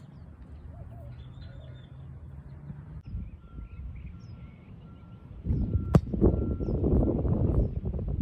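A football kicked once with a sharp thud about six seconds in, during loud gusting wind noise on the microphone. Faint bird chirps are heard before it.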